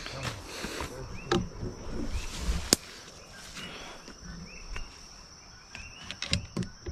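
Steady insect drone, cricket-like, with short chirps repeating every second or so. Over it come rustling and footsteps through leafy undergrowth, with a sharp click about halfway and more handling knocks near the end.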